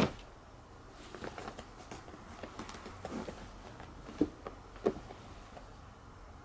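A Siamese cat lands with a thump, then pads about and paws at the edge of a woven straw mat, making soft rustles and light taps, two of them sharper.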